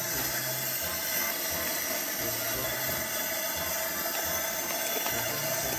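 Gas camp stove burner hissing steadily under a Dutch oven of stew at a rolling boil.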